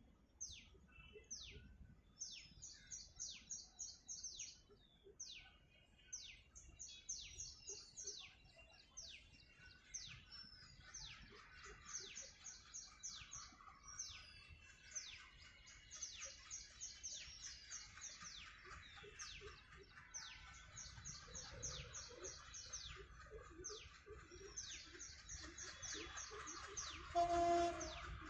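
Birds calling throughout with rapid, high, downward-sweeping chirps in quick runs. Underneath, the low rumble of an approaching ALCO WDG-3A diesel locomotive grows over the second half, and a short horn blast sounds once near the end, the loudest moment.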